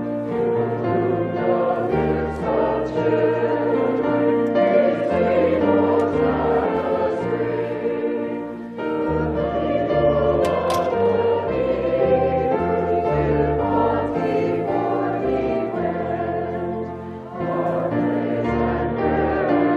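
Choir singing a hymn with instrumental accompaniment, sustained chords over a moving bass line, with brief breaks between phrases about nine seconds in and again near the end.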